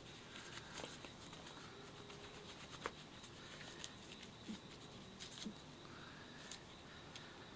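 Faint rubbing and scattered light clicks of padded work gloves with thick rubber back protection being handled and flexed.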